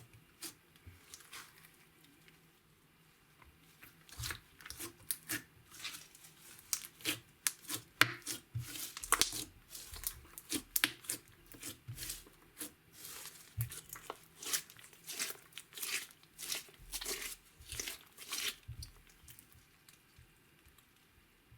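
Slime being squeezed and stretched by hand, giving a dense run of sticky crackles and pops that thins out near the end.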